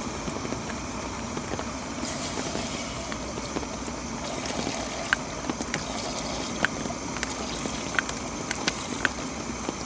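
Steady rain falling on a camping tarp, with a brighter hiss joining about two seconds in and scattered sharp ticks in the second half.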